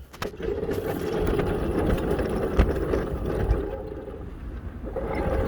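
Small engine of a ride-on backyard railroad locomotive running steadily, easing off about four seconds in and picking up again near the end. A couple of sharp metallic knocks come through in the middle.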